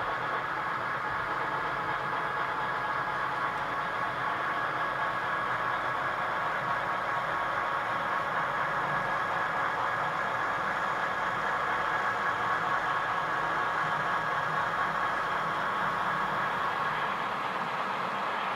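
Steady diesel locomotive engine sound from Southern Pacific F-unit diesels pulling a freight train away from a stop, running evenly with a faint whine.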